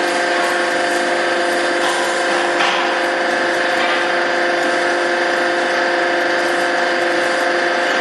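HB270 horizontal bagging baler running, filling a woven bag with loose material: a steady machine hum with several fixed tones and a few faint brief rustles.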